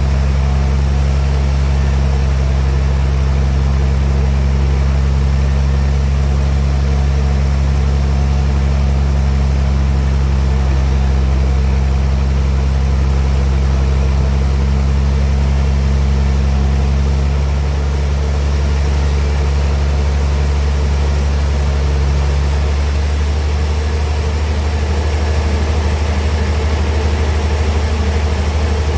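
Band sawmill machinery running with a loud, steady low hum. The hum's tone shifts about two-thirds of the way in and again a few seconds later.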